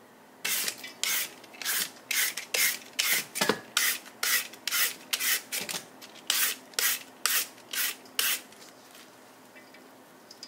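Handheld papaya shredder rasping down the side of a firm, water-soaked green papaya, in quick repeated strokes about two a second that stop about eight seconds in.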